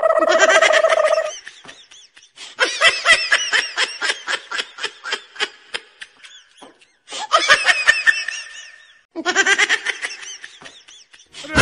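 Rapid, high-pitched cackling laughter in three stretches, with short breaks between them.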